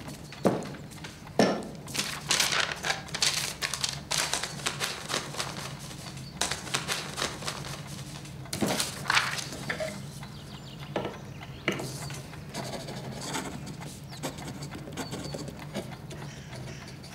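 Metal handcuffs clinking and scraping against a cast-iron radiator in a run of quick, irregular clicks, thinning out after the first few seconds, over a steady low hum.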